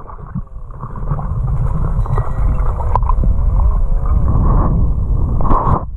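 Muffled underwater water noise picked up through an action camera's waterproof housing: a steady low rumble with gurgling and wavering squeaky tones, a sharp click about three seconds in, and a louder rushing splash near the end.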